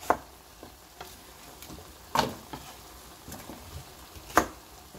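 Kitchen knife striking a wooden cutting board three times, about two seconds apart, while slicing onion and then a Korean green onion, with a few lighter taps between. Under it, the faint steady sizzle of a pan of siraegi simmering.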